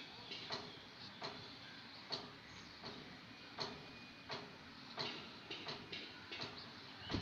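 Crochet hook and yarn working stitches: light irregular clicks and rustles, roughly one to two a second, as the hook catches the yarn and pulls loops through.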